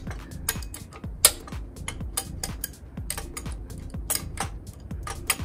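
Irregular metal clicks and clinks of hand tools and steel parts as a Honda CX500 frame's stand mounting is worked loose, over background music with a steady beat.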